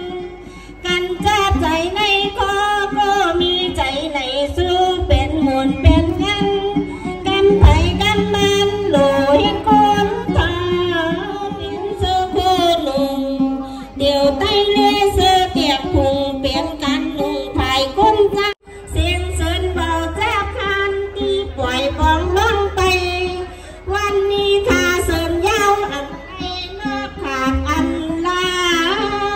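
A woman singing a Tai Khun sor verse into a microphone in a slow melody full of bends and ornaments, over a plucked lute and a small traditional ensemble. The sound breaks off for a moment about two-thirds of the way through, then carries on.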